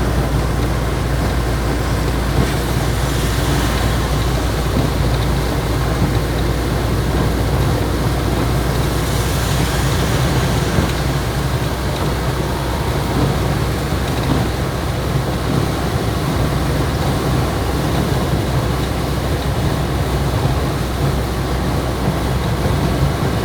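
Cab noise of a Ford 1119 diesel truck driving in heavy rain: the engine's steady low drone with road and rain noise over it. A hiss swells twice, a few seconds in and about ten seconds in.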